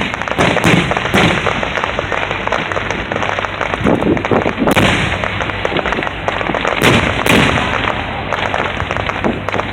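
Fireworks display: aerial shells bursting in quick succession, a dense run of bangs with several louder ones standing out.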